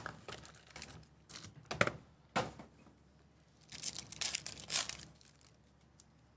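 Trading-card pack wrapper crinkling and tearing open, with a longer burst of crinkling about four seconds in, after a few shorter rustles as the pack is handled and pulled from its cardboard box.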